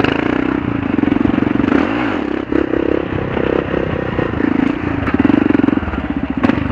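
Kawasaki KLR650's single-cylinder four-stroke engine running as the motorcycle is ridden, with a steady pulsing note. The revs dip and rise briefly about two seconds in.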